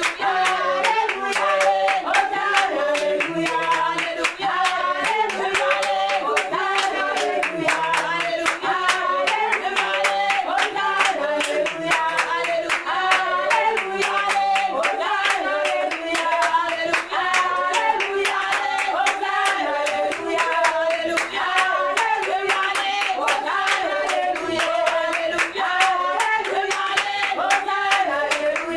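A congregation singing a worship song together while clapping their hands in a steady rhythm.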